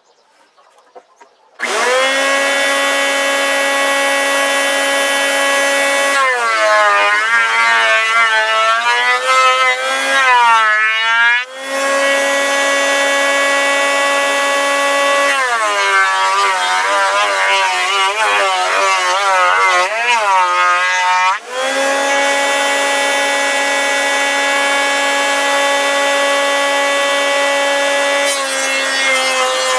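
Electric wood planer running with a steady whine, starting up about a second and a half in; twice a pallet board is fed through and the pitch wavers and sags under the cut, then returns to a steady free-running whine.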